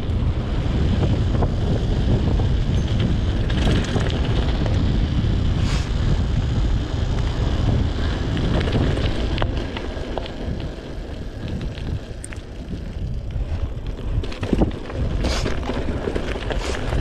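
Wind buffeting the microphone as a mountain bike rolls quickly down a gravel road, with tyres crunching over loose stones and scattered clicks and rattles from the bike. The rush eases for a few seconds around the middle.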